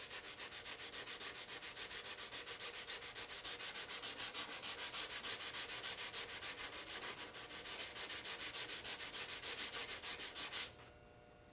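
Folded 180-grit sandpaper worked by hand over dried model putty on a plastic model saucer, rasping in quick, even back-and-forth strokes, about five a second. The dry putty is coming off as fine powder. The strokes stop about a second before the end.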